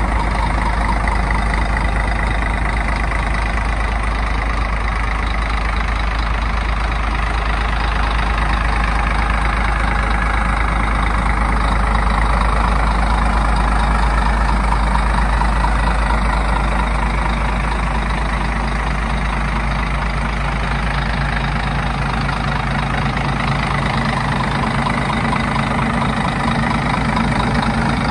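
Scania Irizar coach's rear-mounted diesel engine idling steadily, with a steadier low hum coming through near the end.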